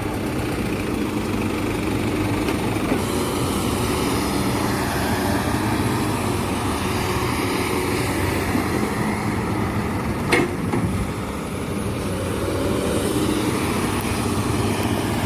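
Heavy diesel engines running steadily at a sand-loading site, the excavator and dump truck together, with one sharp knock about ten seconds in.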